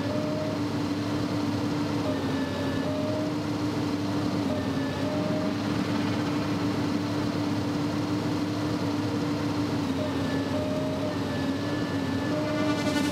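Radio-controlled scale model excavator working: a steady mechanical hum from its drive, with higher whines coming and going several times as the boom and bucket move.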